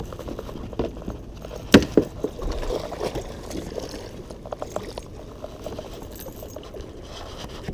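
Splashing water from a hooked wels catfish thrashing at the surface beside a kayak. There are two sharp knocks about two seconds in and scattered light clicks of tackle.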